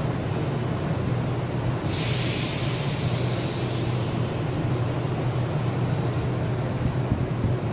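Mexico City metro train in the station: a steady low rumble, and about two seconds in a sudden hiss of released air that fades away over a few seconds.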